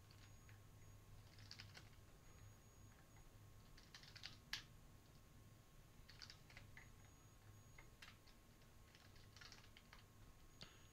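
Faint computer keyboard typing in short bursts of keystrokes, with one sharper key strike about four and a half seconds in.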